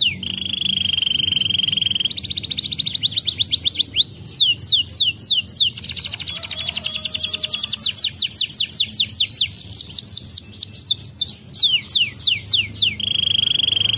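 Domestic canary singing a continuous song of rolling phrases: a steady buzzing trill, runs of rapid repeated notes, and quick downward-sweeping whistles, with the phrase changing every couple of seconds.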